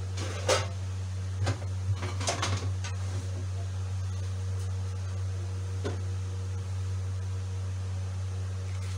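A steady low hum, with a few short clicks in the first few seconds and one more near the middle.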